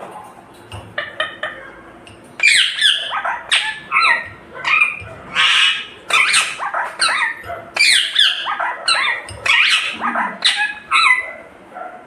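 Indian ringneck parakeet squawking: a rapid series of loud, harsh calls, a few each second, starting about two seconds in, after a few faint clicks.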